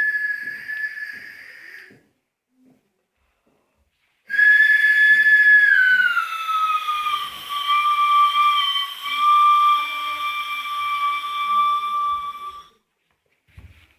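Two long, high whistling tones. The first fades out about two seconds in. The second starts suddenly about four seconds in, slides down in pitch, then holds steady until it cuts off near the end.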